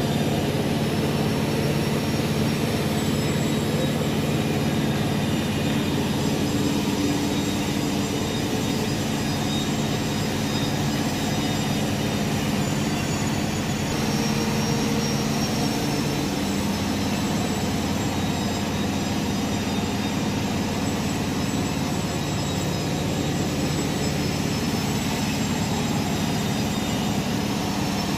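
Machinery running steadily, a hum of several low tones over a noisy drone with a faint high whine; the low tones shift slightly about sixteen seconds in.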